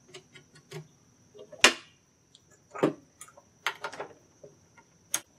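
Irregular clicks and knocks of small metal parts being handled on a Homelite chainsaw as the bar nuts are put back on, with two sharper knocks, about one and a half seconds and three seconds in.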